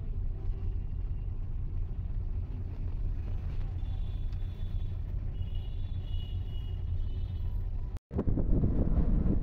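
Steady low engine and road rumble heard from inside a moving car, with faint high tones in the middle. Near the end the sound drops out for an instant and comes back as a louder rumble.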